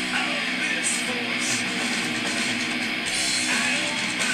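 Background music led by strummed guitar, playing steadily.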